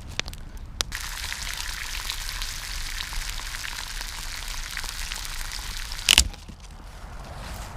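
Food sizzling and crackling in a pan over a campfire. It starts about a second in and stops with a loud sharp knock near the end.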